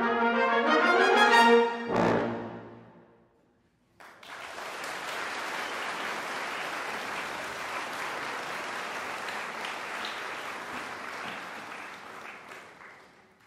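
Brass ensemble playing the last bars of a march, with rising lines into a final accented chord that rings away in the hall. After about a second of silence the audience applauds steadily, fading out near the end.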